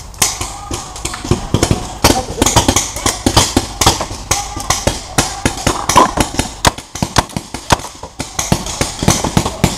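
Paintball markers firing in quick, uneven strings of sharp pops, several shots a second.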